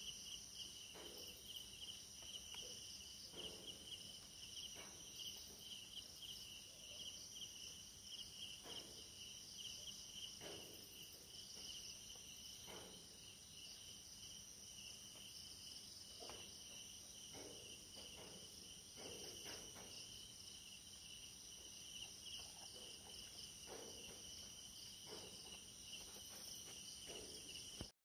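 Faint, steady chorus of crickets chirring, a continuous high-pitched trill. Faint short sounds come and go lower down every second or two.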